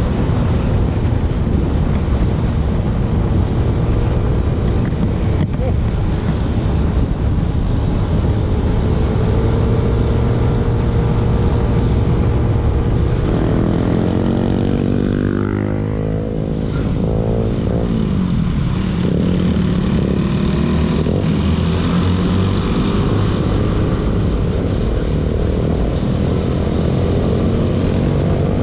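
Yamaha NMAX scooter running at speed, heard from the rider's camera with a steady rush of wind noise over the engine. About halfway through, the engine pitch falls and then climbs again.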